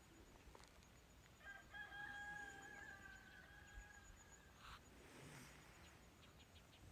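A rooster crowing once, faint: one long held call of about three seconds that drops in pitch at its end.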